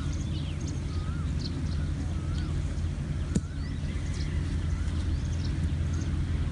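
Birds calling with short rising-and-falling whistled notes, repeated every half second or so, and scattered high chirps, over a steady low rumble. One sharp click about three and a half seconds in: a golf club striking the ball off the tee.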